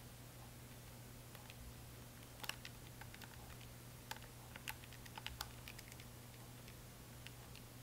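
Soft, irregular clicks of keys being pressed as a calculation is keyed in again to check the result, over a faint low steady hum.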